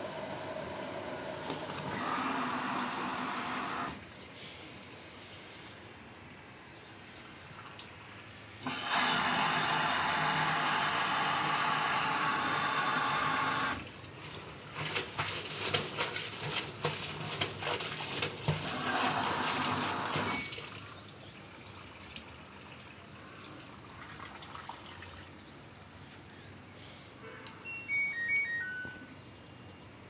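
Water rushing into an LG front-loading washer through its inlet valve in several spurts, the loudest lasting about five seconds, with scattered clicks between them. Near the end, a run of short electronic beeps from the control panel as its buttons are pressed.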